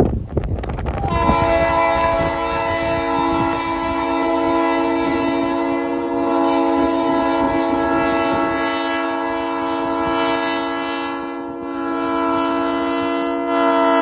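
Diesel locomotive air horn sounding a long, steady chord from an approaching EMD SD9, starting about a second in and held almost without a break, growing louder near the end. The horn is believed to be a Nathan P3.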